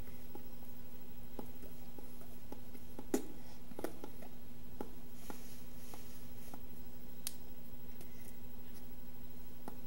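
Steady electrical hum and hiss of the recording, with a handful of soft, scattered clicks and taps.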